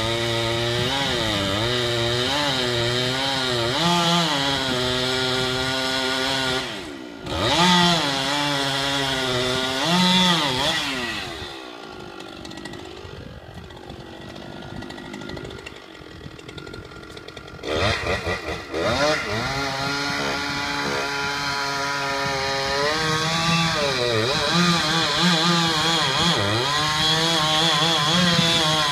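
Two-stroke chainsaw felling a large fire-killed tree, its engine speed rising and falling as it works the cut. About halfway through it drops back to a quieter idle for several seconds, then revs up again and carries on cutting.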